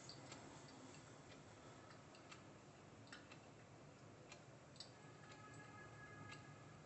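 Coffee dripping from a Kalita Wave dripper into the server below as the bed drains down: faint, irregular little drips and ticks.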